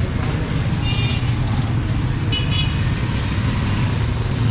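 Street traffic: motorcycle and car engines running in a steady low rumble, with short high horn beeps about a second in and again about two and a half seconds in, and a longer high horn toot near the end.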